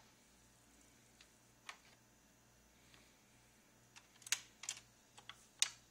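Scattered light clicks and knocks from handling a Garrard Zero 100 turntable: a record set on the platter and the control levers worked, with a cluster of sharper clicks in the last two seconds. A faint low hum runs underneath.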